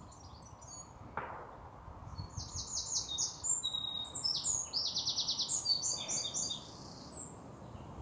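A songbird singing a fast, varied song of high trills and rapid repeated notes, the loudest sound here from about two seconds in until near the end. One sharp crack comes about a second in, a gunshot from the shooting ground.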